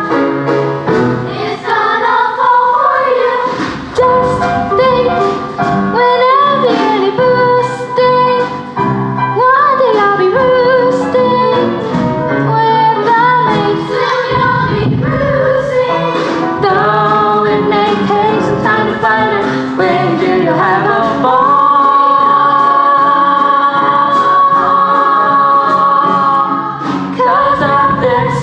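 A musical-theatre song: singing voices over musical accompaniment, with one note held for several seconds about three-quarters of the way through.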